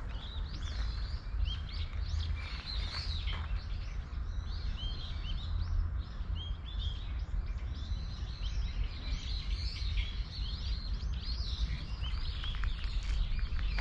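Many small birds chirping and twittering continuously, short overlapping calls, over a steady low rumble.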